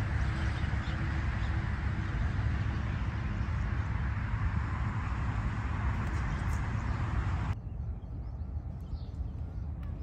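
Steady rushing outdoor noise with a deep rumble. About three-quarters of the way through it cuts off abruptly to a quieter background, where a flock of greater flamingos calls faintly.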